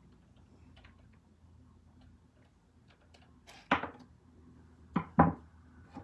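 Small light clicks from taking apart an RC car by hand, then three sharper knocks, one about three and a half seconds in and two close together about five seconds in.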